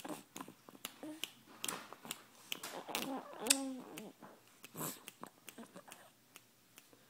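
Toddler smacking her lips while chewing: a quick run of wet mouth clicks, with a short voiced sound about three seconds in.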